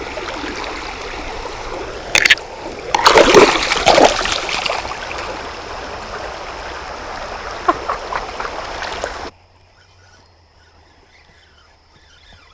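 Creek water rushing over riffles, with loud splashes about two seconds in and again around three to four seconds. The rushing cuts off suddenly after about nine seconds, leaving a much quieter background.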